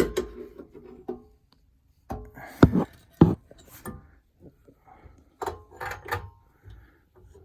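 Metal knocks and clinks of an exhaust pipe being test-fitted onto a pocket bike engine: a string of sharp knocks, some with a brief metallic ring, and a short pause about a second and a half in.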